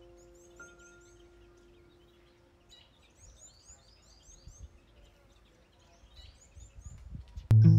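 Small birds chirping in short quick runs of high chirps over faint outdoor background noise, while a chime-like music note fades away. Near the end, plucked-string music comes in loudly.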